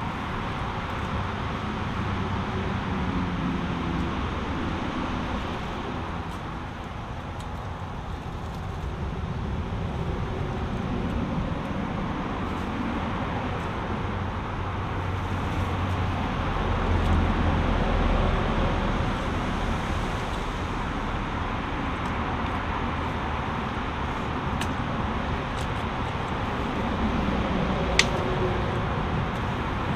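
Steady rush of a fast-flowing brook mixed with road traffic noise, with a low rumble swelling about halfway through and one sharp click near the end.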